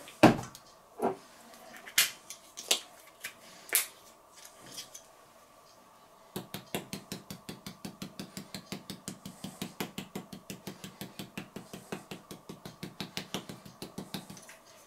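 A few separate knocks from a salt shaker being shaken over a bowl of meat. Then, from about six seconds in, the rapid, even clicking of a hand-twisted spice mill grinding seasoning.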